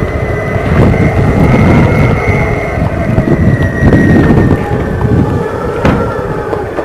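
Strong gusting wind buffeting the microphone in a snowstorm, with a steady high whining tone that drifts slightly in pitch above it and a couple of sharp clicks.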